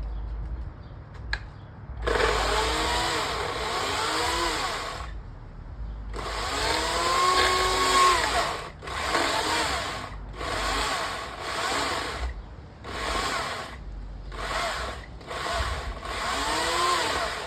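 Small electric chainsaw cutting into a tree branch. It runs in repeated bursts, two long runs and then a series of shorter ones, and its motor pitch rises and falls within each run as the chain works through the wood.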